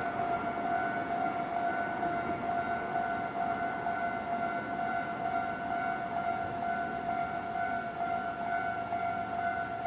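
Japanese railway level crossing's electronic warning bell ringing steadily, the signal that a train is approaching or passing, over a low haze of noise.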